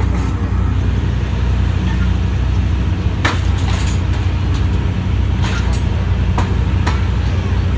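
Heavy diesel engine of farm machinery running steadily with a deep drone, with several sharp clicks or knocks over it in the second half.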